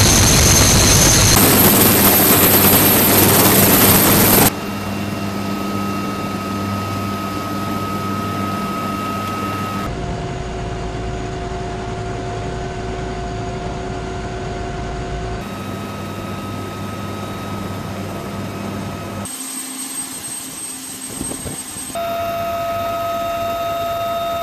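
Helicopter turbine engines and rotors running: a loud rushing noise for the first few seconds, then a quieter steady whine whose pitch shifts abruptly several times.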